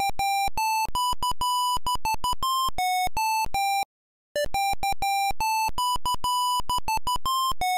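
Apple II's built-in speaker beeping out a simple one-voice holiday tune in short, plain notes. The phrase breaks off about four seconds in and starts over from the top after half a second.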